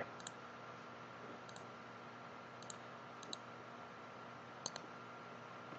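Faint computer mouse clicks, about five spread over a few seconds, each a quick double tick of button press and release, over a faint steady hum.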